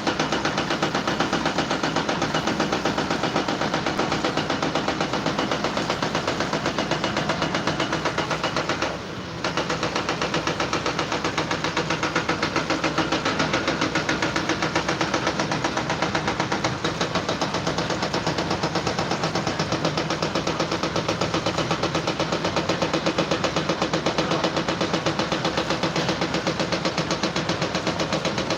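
An engine or motor running steadily with a fast, even pulsing, which dips briefly about nine seconds in.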